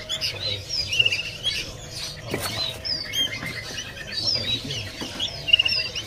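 Many caged songbirds chirping and tweeting, short high calls overlapping from several birds. A single sharp click a little over two seconds in.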